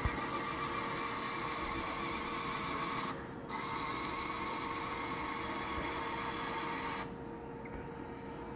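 A small machine running with a steady, high-pitched noise. It breaks off briefly about three seconds in, resumes, and stops about seven seconds in, over a faint constant hum.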